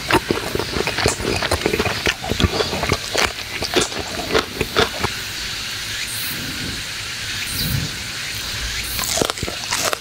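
Close-miked eating sounds: crunchy, clicking chewing of roast lamb and crisp raw vegetables. It pauses to a quiet steady outdoor hiss for a few seconds in the middle, and the chewing starts again near the end.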